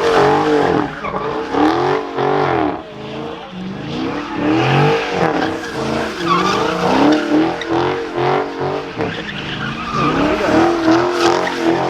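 Car engine revving up and down again and again, with tires skidding and squealing.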